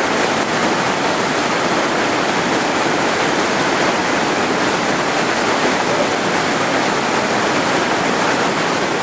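Whitewater rapids rushing over and around boulders in a steep mountain river, a steady, unbroken rush of water.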